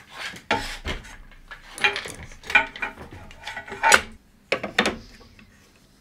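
Clinks and knocks of aluminium extrusion and metal hardware being handled and fitted together, a string of separate sharp hits, the loudest about two and a half and four seconds in.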